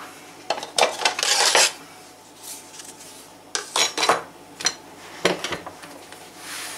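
Metal cookware clattering and clanking as a frying pan is taken out and handled, in several short, sharp rattles.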